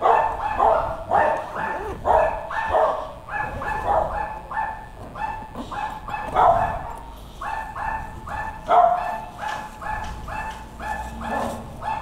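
Small dogs barking non-stop in quick, rapid barks, about three to four a second, with barks from more than one dog overlapping at times.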